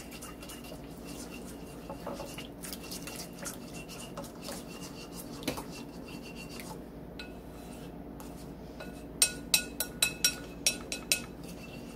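A utensil stirring a marinade of olive oil, vinegar and herbs in a bowl: soft scraping and swishing, then near the end a quick run of sharp clinks as it knocks against the bowl.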